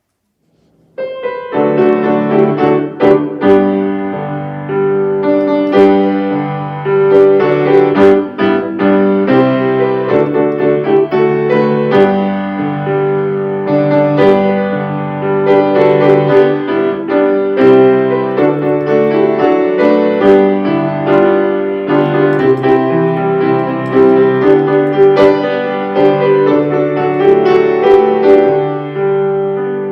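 Piano playing music, starting about a second in, with chords and a melody line struck throughout.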